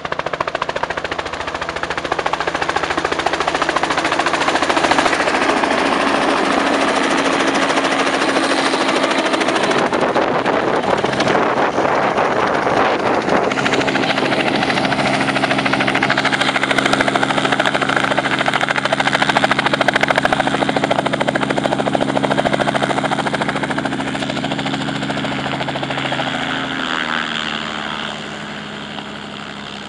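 Helicopter running loud and steady, its engine and rotor sound dropping in pitch and level near the end as it throttles back toward idle.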